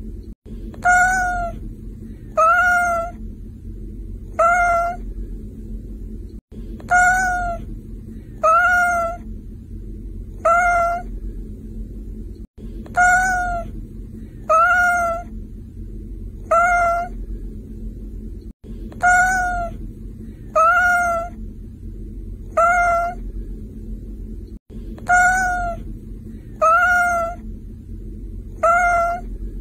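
A domestic cat meowing over and over, short calls about a second apart. The same run of meows repeats every six seconds or so with a brief dropout between runs, as a looped recording would. A steady low hum runs beneath.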